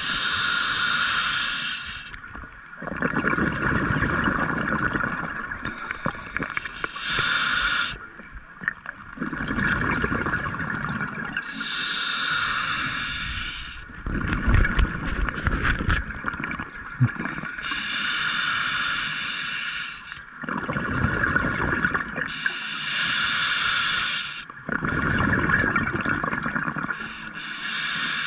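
Scuba diver breathing through a regulator underwater: each inhale is a short hiss through the regulator, each exhale a rush of bubbles, about one breath every five seconds.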